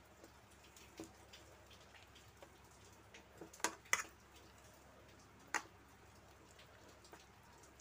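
A hand mixing a thick banana-and-flour batter in a steel bowl. It is faint, with a few sharp clicks against the bowl; the loudest two come close together a little under four seconds in.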